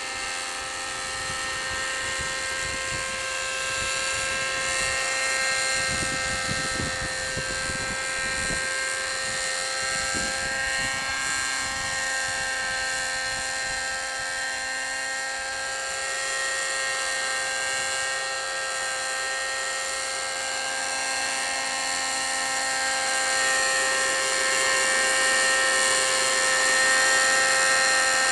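Thunder Tiger Raptor radio-controlled helicopter hovering, its nitro glow engine and rotors giving a steady high-pitched whine whose pitch wavers slightly with throttle. It gets louder in the last few seconds as the helicopter hovers closer.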